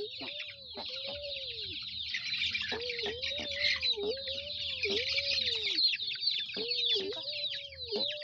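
A flock of chickens calling: a dense chorus of many high, quick peeps, with runs of lower, evenly repeated calls that stop and start every few seconds.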